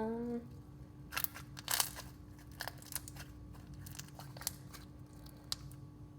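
Slime being kneaded and stretched by hand, making irregular crackling clicks and pops, the loudest about two seconds in. A brief voiced hum at the very start.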